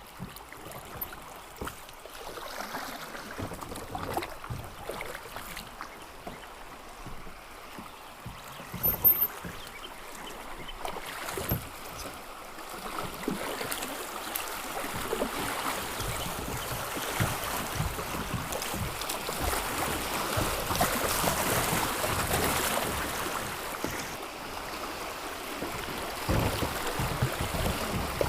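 Kayak on a flowing river: paddle strokes and water splashing, with scattered knocks and the loudest sharp knock about nine seconds in. The rush of moving water grows louder about halfway through as the kayak nears a rapid.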